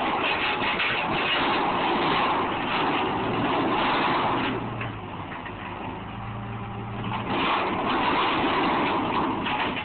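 Excavator working on a demolition: its engine runs under load, with a dense noisy sound that swells for the first few seconds and again near the end, and a steady low hum between.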